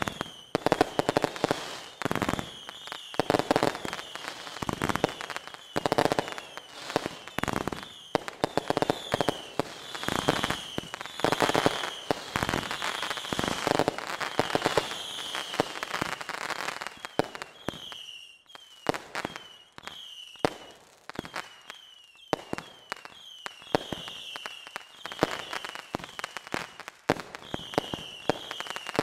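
Fireworks display going off: a rapid, continuous string of bangs and crackling bursts, with many short high whistles from rockets among them.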